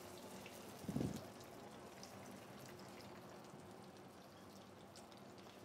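Dry-aged sea bass frying skin side down in oil in a small pan: a faint, steady sizzle with small crackles. A brief low thump about a second in.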